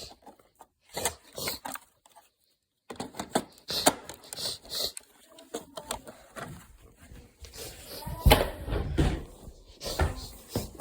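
Plastic robot-vacuum dustbins being handled and opened: a run of sharp clicks and knocks with some rustling, and a heavier thump about eight seconds in.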